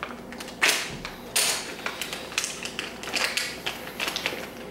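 Small plastic parts bags crinkling and rustling in the hands as they are opened, in a series of short bursts.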